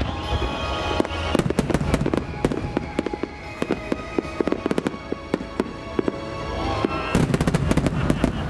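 A rapid barrage of shakudama (No. 10, about 30 cm) aerial firework shells bursting, with deep booms and many sharp cracks. The bursts are heaviest at the start and again about seven seconds in, over music playing.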